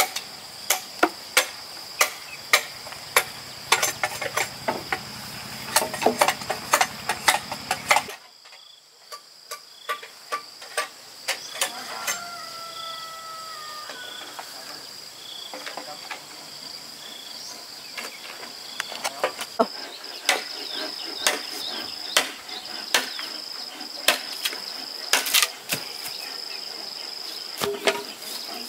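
Steady high insect trilling, over runs of sharp short knocks about two a second that pause for several seconds midway.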